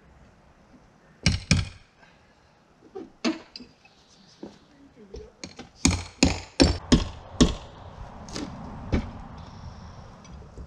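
Hammer knocking on T1-11 wood siding panels: two knocks about a second in, another near three seconds, a quick run of about six strikes at around six to seven seconds, and a last one near nine seconds.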